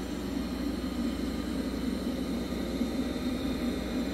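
Roborock Q Revo robot vacuum running on carpet: a steady hum of its suction fan and brushes.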